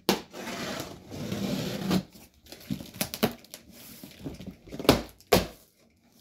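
A knife slicing through packing tape along the seam of a cardboard box: a long rasping cut with tape tearing for about two seconds, then a few sharp knocks and snaps on the cardboard, two around three seconds in and two around five seconds in.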